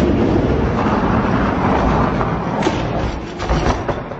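Die-cast toy monster trucks rolling fast down a long orange plastic track with a loud, rumbling rattle. Near the end they clatter with several sharp knocks as they hit the flat finish section and tumble.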